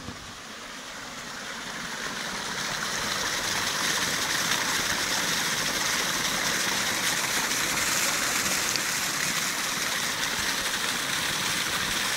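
Pig slurry gushing out of the steel discharge pipe of a 7.5 kW slurry pump and splashing onto the slurry surface below, a steady rushing splash. It grows louder over the first three seconds or so, then holds steady.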